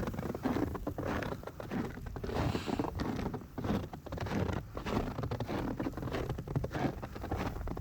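Footsteps crunching in snow, an irregular run of short crunches, over the low rumble of wind buffeting the microphone.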